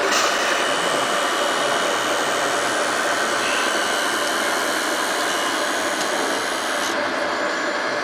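Electric hydraulic pump of a 1/14-scale RC tipper truck whining steadily as it raises the dump bed to tip the load, over the truck's idling engine sound; the whine switches on at the start and cuts off about seven seconds in.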